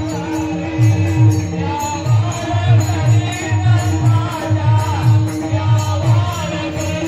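Devotional bhajan music with a steady, repeating drum beat and the jingle of small hand cymbals, carrying a wavering melody line.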